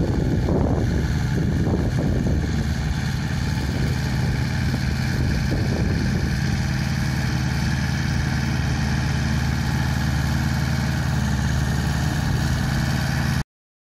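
30 hp Pasquali 997 tractor engine running steadily under load, driving an Agrimaster Yoyo flail mower that is mulching a cover crop. The sound cuts off suddenly near the end.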